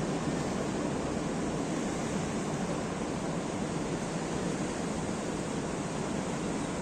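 Ocean surf washing steadily, an even rushing noise with no breaks.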